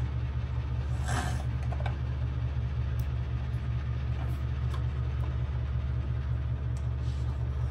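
A steady low hum, with a few light clicks and taps of small plastic toy-kitchen pieces being handled.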